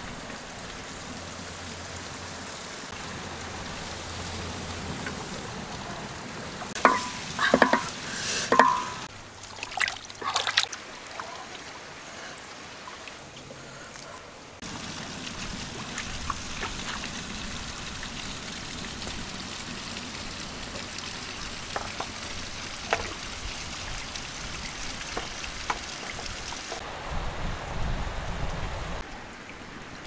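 Steady hiss of crayfish and chili peppers cooking on a bamboo rack in a large wok over a wood fire, with a cluster of sharp clatters about a third of the way in.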